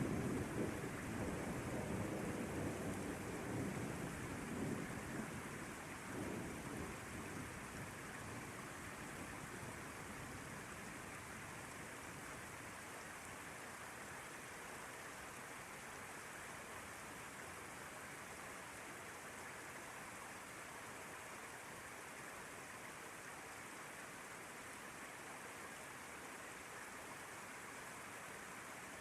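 Steady rain falling, with a low rumble of thunder that fades away over the first several seconds, leaving only the even hiss of the rain.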